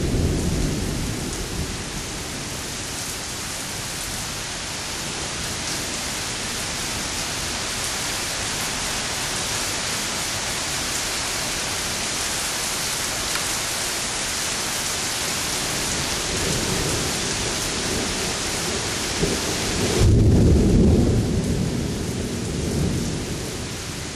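Heavy rain falling steadily in a thunderstorm. Thunder rumbles at the start, then a louder roll of thunder builds and peaks near the end.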